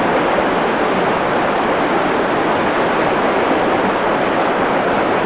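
Steady, loud rushing of fast-flowing water, like a mountain torrent running over boulders, even and unbroken.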